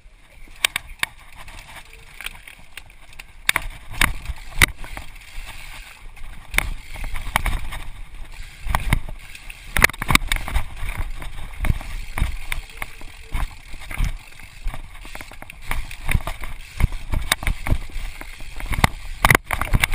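Mountain bike descending a rocky trail: frequent knocks and clatters as the tyres and frame hit rock, over a steady rushing noise.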